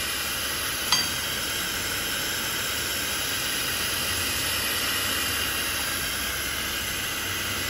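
Argon-shielded welding torch of a hollow pipe welding machine hissing steadily as it seam-welds a gold tube feeding through the rollers. A single short click about a second in.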